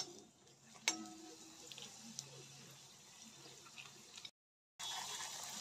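A fuchka shell frying in hot oil in a metal wok: faint sizzling and crackling of the oil, with a sharp metallic clink of the spatula against the pan about a second in. The sound drops out briefly near the end, then the sizzle comes back louder.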